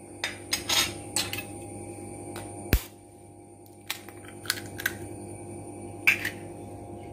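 An egg being cracked into a bowl: scattered light clicks and taps, with one sharp knock a little under three seconds in.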